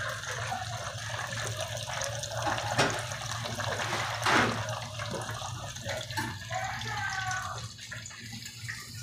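Breaded catfish fillets frying in a pot of hot oil: a steady sizzle and bubbling, with a couple of sharp knocks about three and four seconds in.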